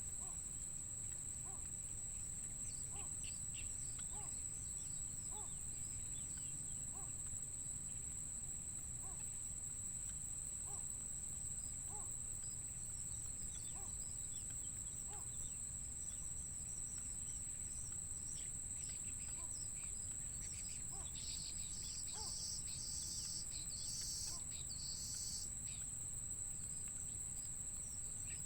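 Steady high-pitched insect chorus, with faint short chirps about once a second and a few louder bursts of high chirping near the end.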